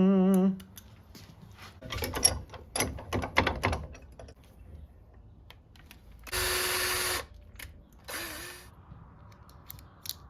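Small parts clicking and rattling as they are handled, then a handheld rotary tool run in two short bursts, the second winding down in pitch as it stops.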